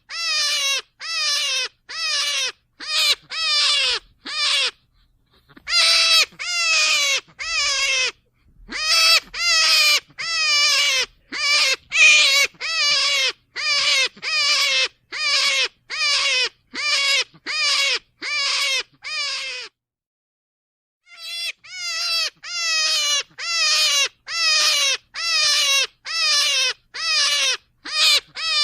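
Rabbit squealing: a run of short, wavering pitched calls, about two a second, each dropping in pitch at its end, broken by a few brief pauses.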